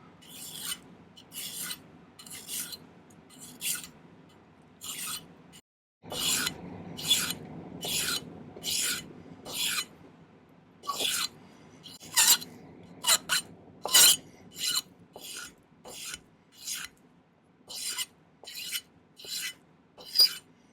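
Hand file rasping on sterling silver half-round wire, cutting a taper into it in steady back-and-forth strokes, a little more than one a second, with a brief break about six seconds in.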